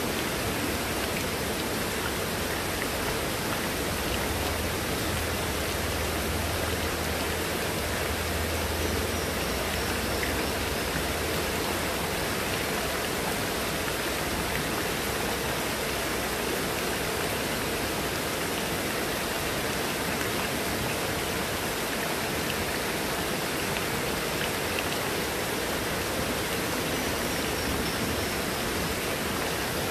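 Heavy rain pouring steadily onto leaves, paving and a wet tabletop, with runoff streaming off a roof edge. A low rumble sits under it for a few seconds near the start.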